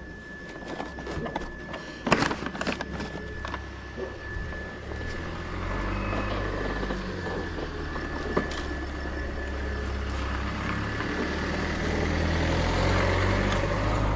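A motor vehicle's engine running close by, its low rumble growing louder from about five seconds in. There is a cluster of clicks and knocks about two seconds in, and a thin steady whine throughout.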